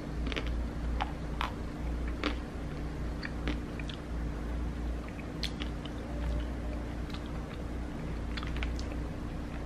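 Biting and chewing a chocolate-and-almond-coated ice cream bar: scattered sharp crunches of the nutty coating between quieter chewing, over a steady low hum.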